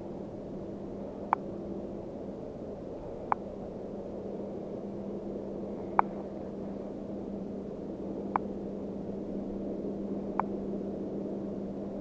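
Spinning reel cranked in a steady lure retrieve: a low, even whirring hum, with a short sharp tick about every two seconds.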